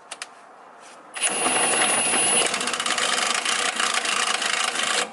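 Cordless power tool turning the screw of a differential bushing puller. It starts about a second in with a steady whine, then from about halfway breaks into a rapid hammering rattle as the load builds, drawing the worn differential bushing out.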